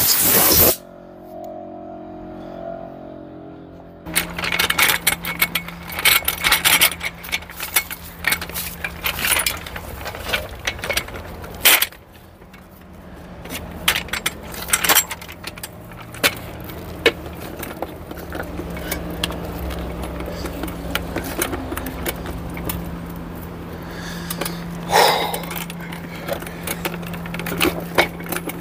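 A loud hiss that cuts off under a second in, then a metal hand truck rattling, clinking and scraping as a heavy carved wooden figure is moved on it over rough ground, with a few sharp knocks. A steady low hum runs underneath.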